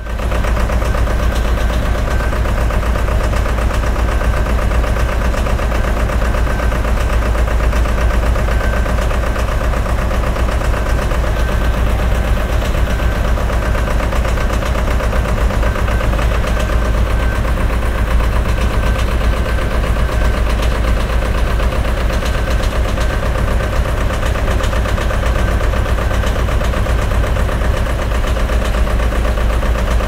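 Old diesel truck engine running loudly at a steady, unchanging speed.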